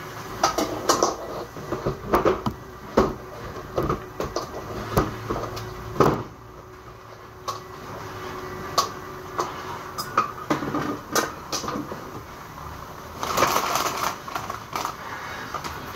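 Kitchenware clattering: pots, pans and utensils knocking together as they are handled, a string of irregular sharp knocks with a quieter stretch midway and a denser burst of clatter near the end.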